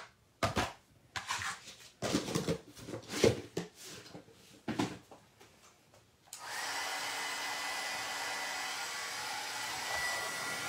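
A few knocks and paper rustles as cardstock and an embossing-powder tray are handled. About six seconds in, an embossing heat tool switches on and runs steadily, with a blowing sound and a thin steady whine, heat-setting white embossing powder.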